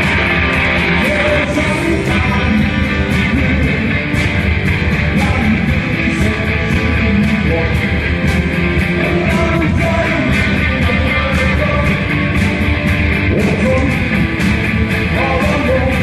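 A rock band playing loud guitar-driven music with a steady beat at a sound check.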